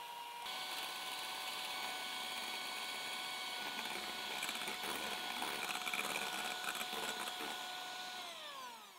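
Philips electric hand mixer whipping egg whites in a glass bowl: a steady motor whine over the whisking of the beaters, with some clicking of the beaters against the glass midway. The tone shifts about half a second in, and near the end the motor is switched off and winds down in pitch.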